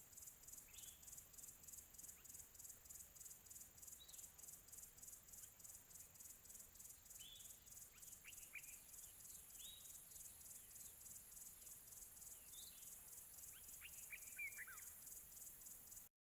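Faint insects chirping in a steady, high-pitched pulse, about four pulses a second, with short bird chirps now and then and a quick run of them near the end. The sound cuts off suddenly at the very end.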